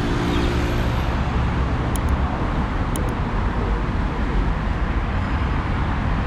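Steady city street traffic: motor vehicles running and passing in a continuous low hum. A pitched engine or horn tone fades out within the first second.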